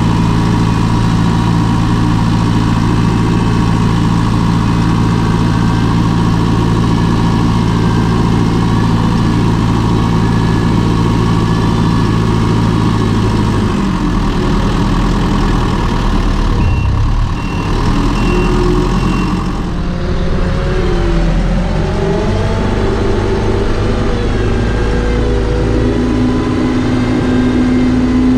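Tractor's diesel engine running at steady revs, then changing note about halfway through, with the revs rising and falling as it works the silage pit.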